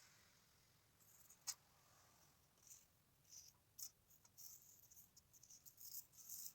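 Near silence with faint, irregular high-pitched scratching and two sharp clicks, one about a second and a half in and one near four seconds.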